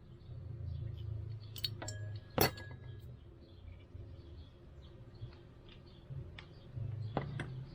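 A few sharp metallic clicks and clinks as small carburetor parts and tools are handled, with a low hum coming and going underneath.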